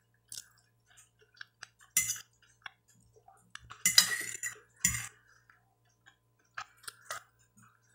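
Close-up eating sounds: chewing crisp lettuce leaves and a metal fork clicking against the plate. These come as scattered small clicks and a few louder crunches, the loudest around four seconds in.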